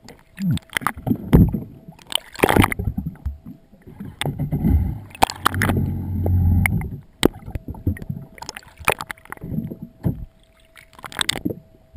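Water sloshing and gurgling around an underwater camera housing, in uneven surges, with sharp knocks and clicks scattered throughout.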